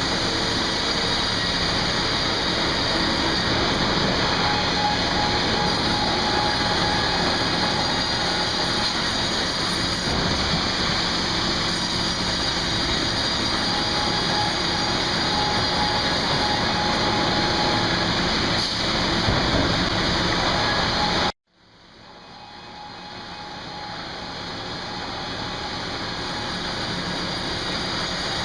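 Steady, dense running noise of sawmill machinery. It cuts off abruptly about three-quarters of the way through and fades back in over the next few seconds.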